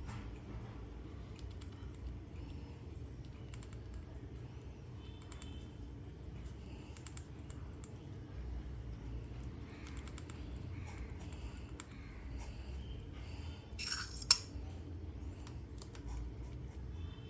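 Soft scattered clicks over a low steady hum, with a short, high chirp from a cockatiel chick about five seconds in and one sharp, loud click near the end.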